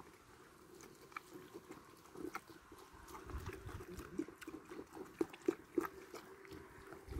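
Goat kids nibbling and chewing bread from a hand: quiet, irregular chewing and nibbling clicks, busier from about two seconds in.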